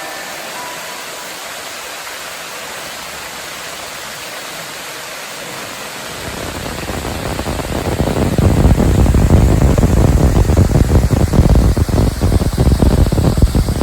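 Waterfall rushing: a steady hiss that swells from about six to eight seconds in into a much louder, heavy low rumble.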